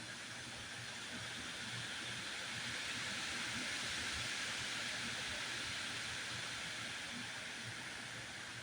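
Wind blowing in a steady hiss that swells to a stronger gust around the middle and then eases off.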